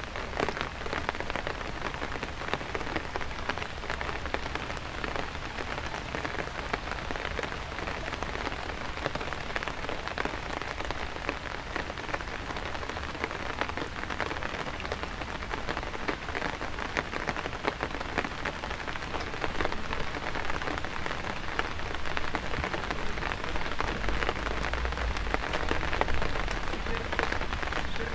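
Steady rain falling: a dense patter of individual drops over an even hiss.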